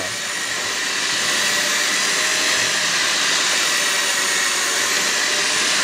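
Handheld electric mixer with dough hooks running steadily, kneading yeast dough: an even motor whine.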